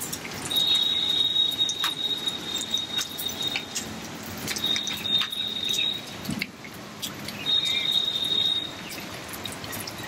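Rain falling on a wet concrete rooftop, with many small drip ticks. Over it a high, steady trill sounds three times, the first about three seconds long.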